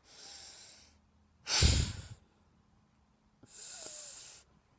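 A person breathing out heavily close to the microphone, three breaths about a second apart, the middle one much louder than the others.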